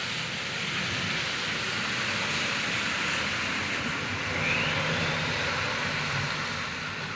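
Heavy loaded truck running downhill in the rain: a steady hiss of rain and wet road over a low engine drone.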